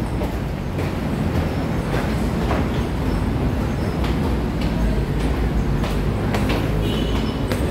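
Steady low rumble of a monorail train running through the elevated station, with a few faint knocks over it.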